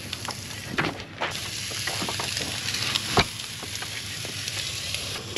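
Barbecue meatballs sizzling in a lidded pan, a steady hiss that grows stronger about a second and a half in, with a few sharp clicks and knocks.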